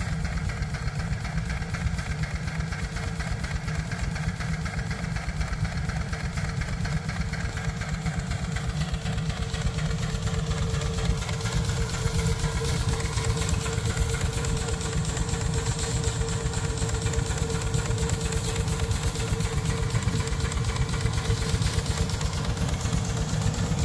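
Small old marine steam engine running steadily, its strokes giving a rapid, even beat. A steady hum comes up about midway and fades near the end.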